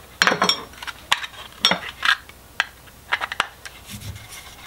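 Hard plastic and metal parts clicking and clattering on a wooden workbench as a fog light housing, its clear plastic lens and a screwdriver are handled and set down, with about eight separate sharp knocks.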